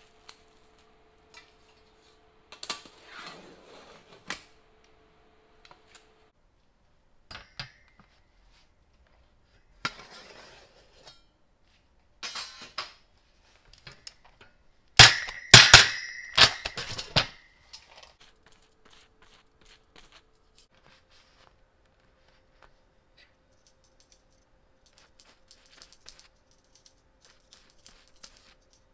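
Cling film rustling as it is peeled off a loaf tin. Then a quick series of loud knocks with a ringing tail, from a metal Pullman loaf tin being handled on a wire cooling rack. Light ticks and taps follow near the end.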